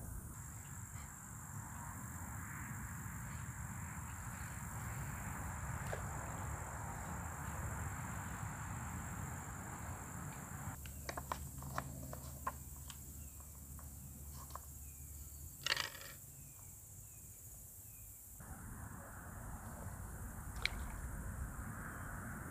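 Outdoor pond-bank ambience: a steady rushing hiss with a thin, steady high-pitched whine over it. About halfway there is a run of small clicks and taps with one louder knock, and then a few faint chirps.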